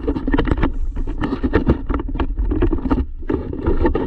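Radio-controlled monster truck driving over rough asphalt, heard from a camera mounted on its body: a rough, jolting rumble of knobby tyres and chassis rattle with many irregular knocks, plus wind on the microphone.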